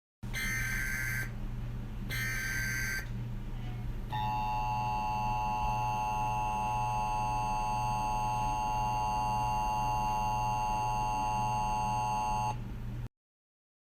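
Emergency Alert System broadcast tones: two short bursts of shrill digital data screech, then a steady electronic alarm tone held for about eight seconds that cuts off abruptly.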